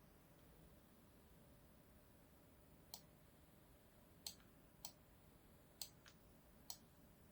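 Computer mouse clicking: about six short, sharp clicks spaced irregularly over the second half, against near silence.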